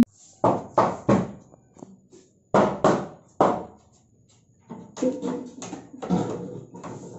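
Sharp knocks in a small room: three in quick succession, then three more about two seconds later, followed by quieter, irregular knocking.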